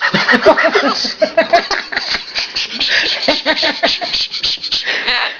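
Rapid chuckling, laugh-like vocal sounds, then a run of sharp clicks and taps.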